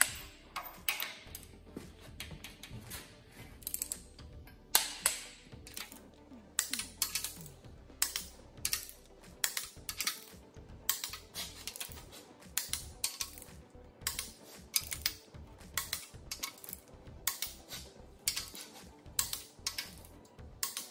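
Ratchet of a torque wrench clicking in quick short runs as cylinder head bolts are tightened down in stages to 40 and then 65 ft-lb. There are a few louder single clicks, one at the very start and one about five seconds in.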